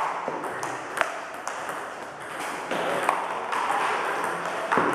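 Table tennis balls in a multiball drill: bats striking the balls and the balls bouncing on the table, a quick run of sharp, separate clicks.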